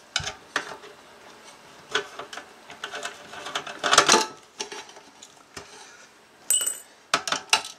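Screwdriver undoing the small screws that hold a metal band on a circuit board: irregular clicks and scrapes of the blade and screws, louder about four seconds in. A quick run of sharp metallic clicks comes near the end.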